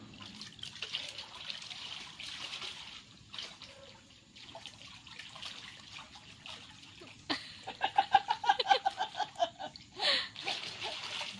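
Water splashing and trickling in an above-ground pool as a swimmer moves through it underwater. About seven seconds in comes a loud, fast run of short pulsing sounds lasting a few seconds, then a loud splash-like burst near the end.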